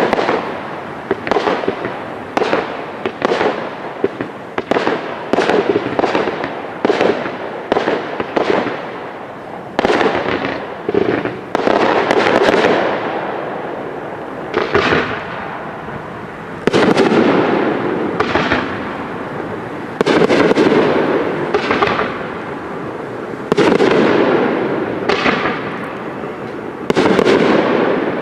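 Professional fireworks display: a quick run of sharp bangs about twice a second, then heavier shell bursts every two to three seconds, each trailing off in a long echo.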